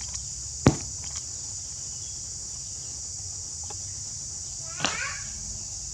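A steady, high-pitched chorus of insects droning throughout. A single sharp knock comes about a second in, and a short high call a little before the end.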